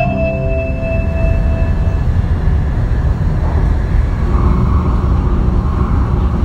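The last notes of an onboard announcement chime ringing out over about the first two seconds, over the steady low rumble of a 700 series Shinkansen running at speed, heard from inside the train.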